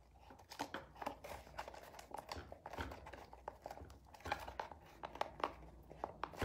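Hands pressing and rubbing masking tape onto a cardboard box: irregular papery crinkles, rustles and light taps, a few louder ones in the second half.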